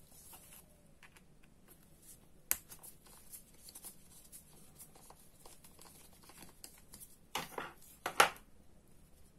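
Small clicks and scrapes of a precision screwdriver and gloved hands working on the side plate of a Daiwa Seiko Coronet 5 fishing reel, with one sharp click about two and a half seconds in and two louder scrapes close together near the end.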